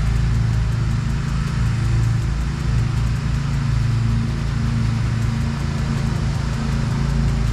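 Steady low drone of a motor vehicle driving, with engine and road noise.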